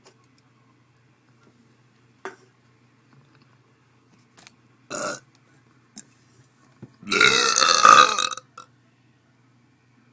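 A long, loud belch about seven seconds in, lasting about a second and a half, brought up after chugging beer. A shorter burst comes a couple of seconds before it.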